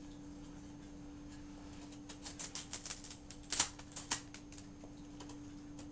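Folding knife's S30V steel blade carving into a wooden 2x2: a quick run of short, sharp scraping cuts starting about two seconds in, the loudest near the middle, tapering off to a few faint ones. A steady low hum runs underneath.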